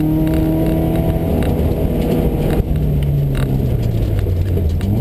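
In-car sound of a Subaru rally car's flat-four engine under load on a snowy gravel stage, with tyre and road noise and scattered sharp ticks. About halfway through the engine note breaks briefly. It then sinks over the next couple of seconds and picks up again near the end.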